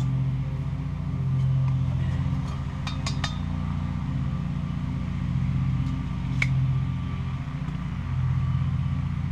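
Lawnmower engine running steadily, its drone swelling and fading every few seconds. A few light clinks about three seconds in and again after six seconds.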